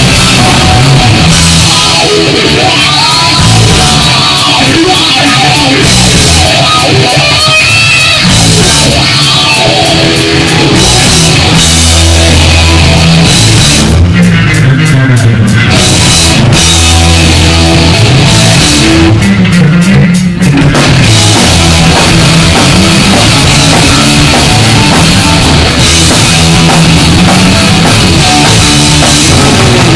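Live punk rock band playing loud, with distorted electric guitar, bass guitar and a full drum kit. The cymbals drop out briefly twice, about halfway through and again about two-thirds of the way through.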